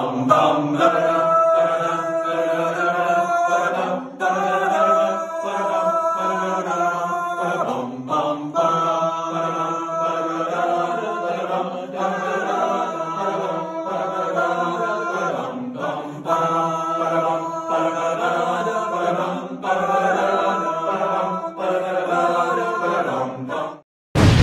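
Music of chanting, choir-like voices over a steady low drone, in phrases that break about every four seconds. It cuts off just before the end, and a sudden loud explosion effect starts right at the end.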